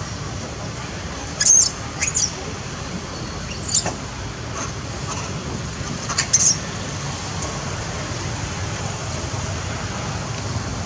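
Macaques giving about four short, high-pitched squeaks, spread over the first seven seconds, over a steady low background rumble.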